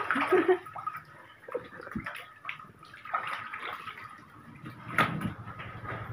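Shallow water splashing and sloshing as snakehead fish thrash in a tank and are grabbed by hand, with one sharp slap about five seconds in.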